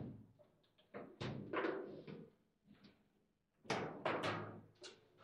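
Table football being played: sharp knocks and clacks of the rod-mounted figures striking the ball and the rods banging against the table, a cluster about a second in and a louder, quicker run of knocks from about three and a half to five seconds in.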